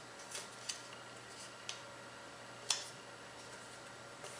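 Origami paper being handled and folded by hand: a few short, light crackles and taps, the sharpest about two and a half seconds in, over a faint steady hiss.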